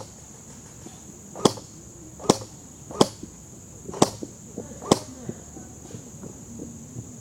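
Five sharp cracks of airsoft fire, irregularly spaced about a second apart, followed by a few fainter ticks, over a steady high buzz.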